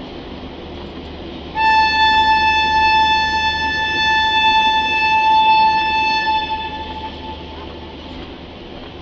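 Locomotive horn blowing one long, steady blast of about five seconds, starting under two seconds in and fading away, over the steady rumble of passenger coaches rolling past.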